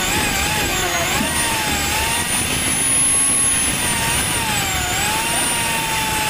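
Electric hand drill boring a hole in a round plate under load, its motor whine wavering up and down in pitch as the bit bites and eases.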